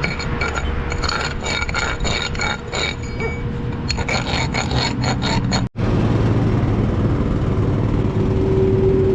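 Metal being worked: scraping with many short clinks and knocks that ring. After an abrupt cut about halfway through, a steady machine noise runs with a low hum.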